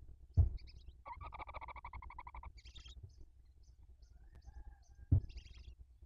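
Barn owls in the nest box: a rapid rattling, buzzy call lasting about a second and a half, starting about a second in, with short hissing bursts after it. Two dull thumps, one near the start and one about five seconds in, are the loudest sounds.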